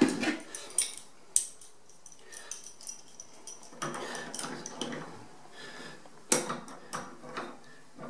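Metal tools clinking and clicking against a brass radiator valve as an adjustable spanner and grips are fitted onto it to tighten it on a copper pipe, with handling and scraping noise between the sharp clicks.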